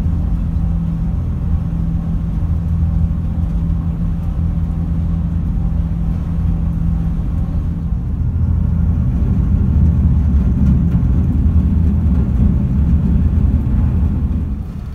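SeaBus passenger ferry's engines running on the crossing: a steady low drone with a held hum. It grows louder and rougher about halfway through.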